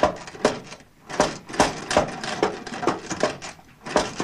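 La Populaire push-operated sewing machine being worked by hand, its mechanism making a run of sharp clacks, about two a second, with brief pauses between strokes.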